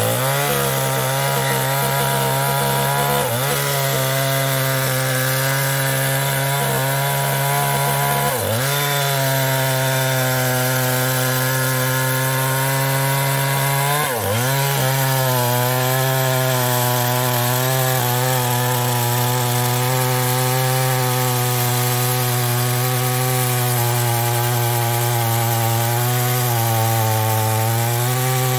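Chinese-made two-stroke chainsaw running under load, cutting into a large old mahogany trunk. The engine holds a steady high pitch, briefly dips and recovers three times, and sags slightly near the end.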